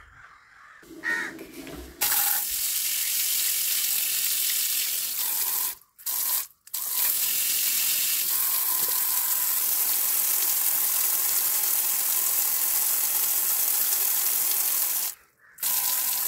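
Water running from a plastic outdoor tap in a steady stream and splashing onto bare soil, starting about two seconds in. The flow sound breaks off briefly twice around six seconds in and once near the end.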